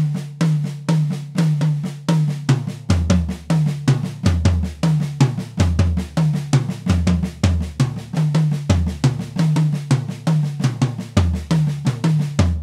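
Drum kit played as a repeating fill of Swiss army flam triplets stretched to sevens: two single strokes lead into each flam triplet, in a steady, evenly repeating pattern. Deeper drum strokes join about three seconds in, and the last stroke rings out at the end.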